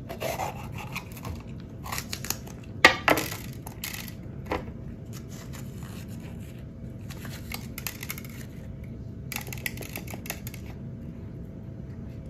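Knife slicing through a green bell pepper over a plate: crisp crunching cutting strokes in short spells, with a few sharper knocks of the blade on the plate about three seconds in.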